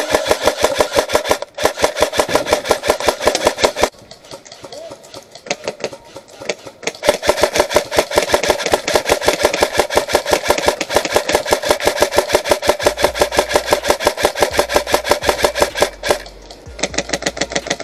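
AK-style airsoft electric rifle firing on full auto, its gearbox cycling in a fast, even rattle of shots. It fires two short bursts, pauses for about three seconds, then fires one long burst of about nine seconds and a final burst near the end.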